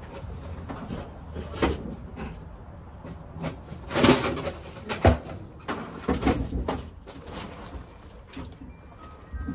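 Irregular knocks and clunks with some scraping as a snowblower is pushed and shifted about, the loudest bangs about four and five seconds in.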